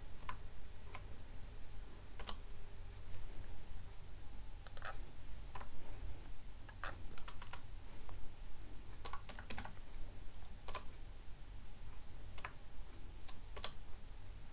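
Typing on a computer keyboard: irregular keystroke clicks, some single and some in short quick runs, with pauses of a second or more between groups as an address is keyed in a few characters at a time.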